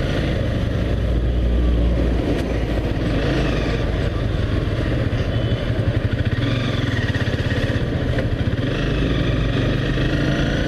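Honda CBR250R's single-cylinder 250 cc engine running at low, varying revs while the bike is ridden slowly in traffic.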